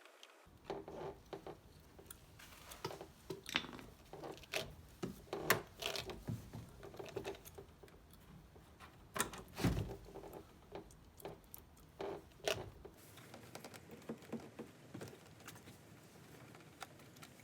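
Irregular clicks, taps and short scrapes of hand work on a car's interior door panel, as the screws along its bottom edge are taken out with a screwdriver.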